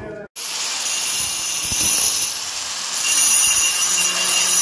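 Angle grinder fitted with a diamond hole-saw (core) bit, running and cutting a round hole in a stair tile for a railing pillar. It gives a loud, steady whine with a grinding rasp, starting just after a short break near the start.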